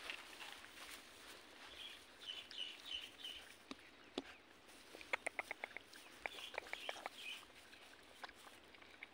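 Puppies eating from plastic tubs, with quick runs of sharp wet clicks from chewing and lapping about halfway through. A chicken nearby gives short, high calls in small runs, twice.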